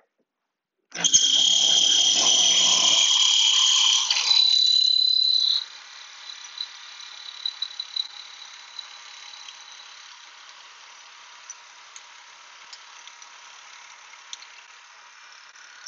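Shopsmith Mark V running with a steady high-pitched whine while the auger bit spins inside a hollow mortising chisel. It is loud for the first few seconds, then drops suddenly to a much fainter hiss with a few small clicks.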